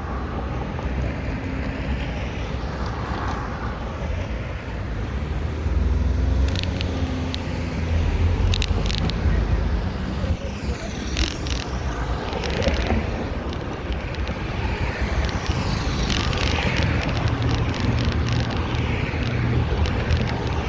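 Street ambience heard from a moving bicycle: car traffic passing, with wind rumbling on the microphone and scattered ticks and rattles that come more often in the second half.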